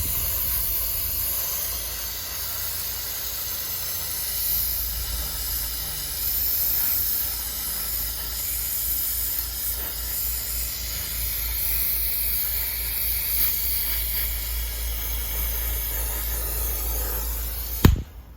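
Gas-welding torch flame hissing steadily. It cuts off with a sharp pop near the end.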